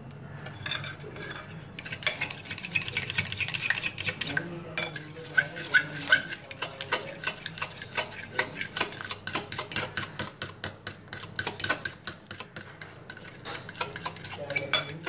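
A hand utensil beating whipped cream and condensed milk in a cut-glass bowl, clinking rapidly against the glass several times a second, with a brief pause about four and a half seconds in.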